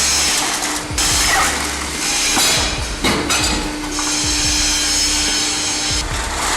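Loud, harsh grinding and crushing noise of heavy industrial scrap-processing machinery with a steady hum. It changes abruptly three times. Background music with a steady low beat runs underneath.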